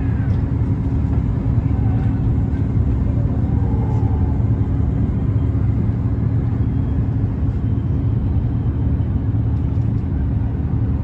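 Steady low drone of a river cruise boat's engine heard aboard, running evenly.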